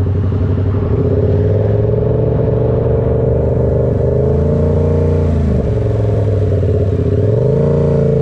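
Motorcycle engine running at a steady speed, then its revs drop about five seconds in, followed by a short rise in revs near the end.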